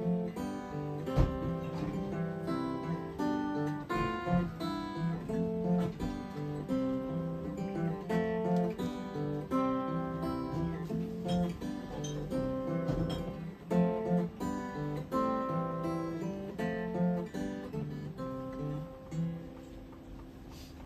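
Solo acoustic guitar strummed and picked through a steady chord progression, with no singing; near the end the playing stops and the last chord rings out and fades.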